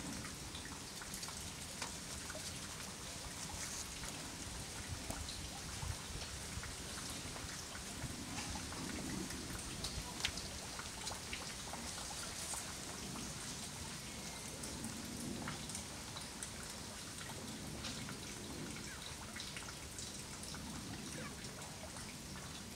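Steady outdoor hiss with many faint, scattered ticks, a patter like light drops falling on foliage, with one sharper tick about ten seconds in.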